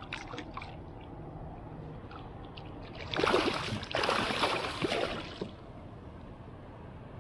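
A hooked fish thrashing at the surface beside a kayak, splashing hard for about two seconds starting some three seconds in.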